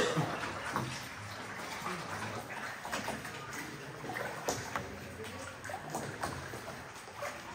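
Water sloshing and trickling around a small rowed boat, with a few light splashes of oar strokes.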